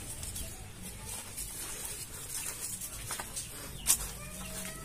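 Hens in a poultry yard, one giving a brief soft call near the end, over faint rustling, with one sharp click about four seconds in.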